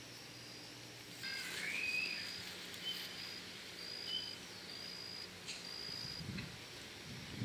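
Birds calling outdoors: a short rising chirp about a second in, then a string of high, thin whistled notes repeated roughly once a second, over a faint steady hum.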